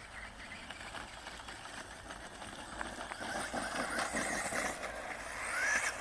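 The brushless electric motor of an ECX Torment RC truck running, with its tyres crunching over gravel. The sound gets louder from about halfway in, and near the end the motor whine rises in pitch as the truck speeds up.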